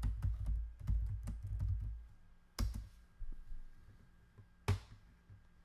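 Computer keyboard being typed on: a quick run of keystrokes for about two seconds, then a few single, sharper key presses with pauses between.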